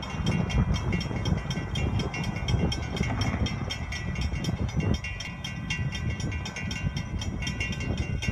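Railroad grade-crossing warning bell ringing in rapid, even strikes, several a second, as the crossing signals activate and the gates come down ahead of an approaching train. A low rumble sits beneath it, heavier in the first half.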